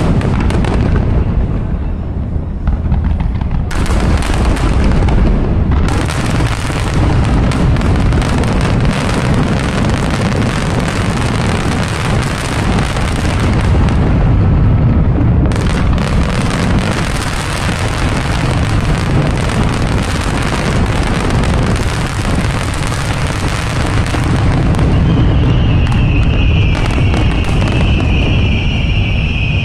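Large aerial fireworks bursting in a continuous barrage: overlapping booms with crackling, no pauses between shells. Near the end a high whistling sound joins in over the booms.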